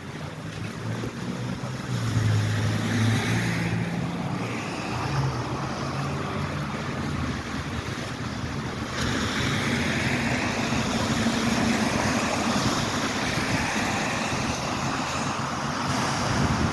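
Steady rain and wind noise on the microphone, with traffic going by on a wet road.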